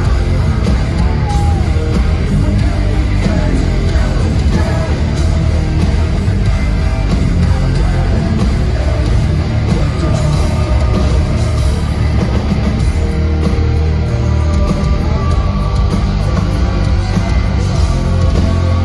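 Heavy metal band playing live through a festival PA, heard loud from within the crowd, with guitars and a heavy low end.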